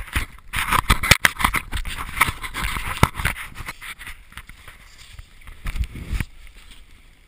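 A sled sliding fast down a snow run: a steady scraping hiss of snow against the sled and the camera, with sharp knocks and bumps along the way. It eases off about six seconds in as the ride slows.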